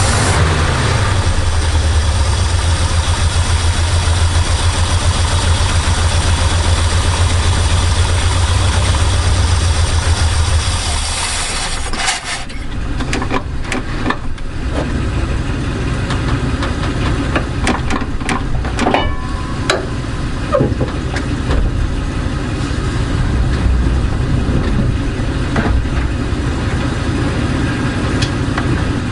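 Chevrolet C60 truck engine running on its freshly rebuilt carburetor, with the air cleaner off. It runs loud with a strong hiss for the first twelve seconds or so, then settles to a lower, quieter run with scattered ticks and clatter. The owner judges it to sound okay and healthier.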